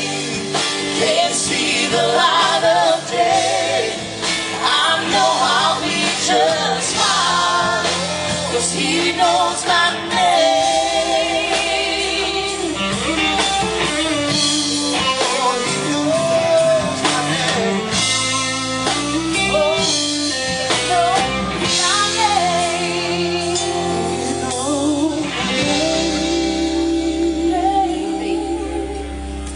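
Live band playing a gospel song: electric guitar, bass and drums with singing over them.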